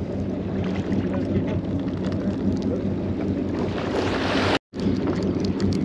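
Steady low hum of the fishing boat's engine, with water washing against the hull. The wash swells near the four-second mark, then the sound drops out for an instant.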